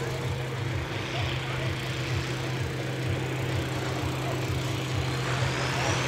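Diesel engine of a red IHC International farm tractor labouring under load as it pulls a brake sled, a steady low drone with an even pulse.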